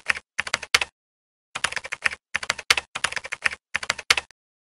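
Keyboard typing sound effect laid over animated on-screen text: rapid runs of key clicks in bursts, with a longer pause about a second in, stopping a little after four seconds in.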